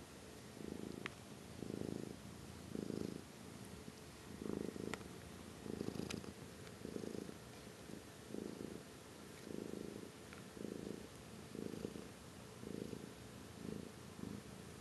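Tabby cat purring steadily while being stroked, the purr swelling about once a second with its breathing.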